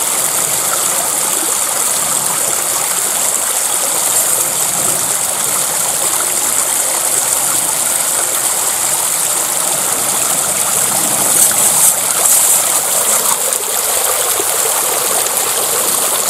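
Shallow river water rushing steadily over stones and through a gold-prospecting sluice box, swelling slightly about three-quarters through.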